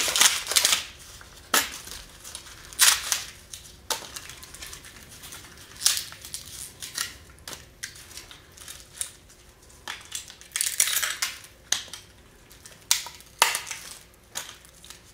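Cured carbon fiber landing-gear layup being broken out of its mold by hand: irregular sharp cracks and crunches as pieces of the mold snap and tear away, with a denser run of them about ten seconds in.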